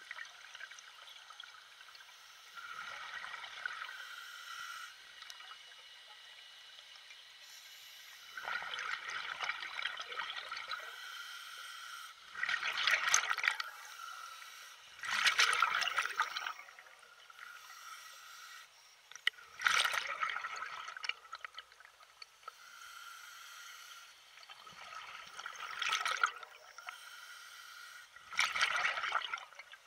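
Lake water lapping and splashing in small waves, a splash every three to four seconds. Under it is a steady high-pitched hum.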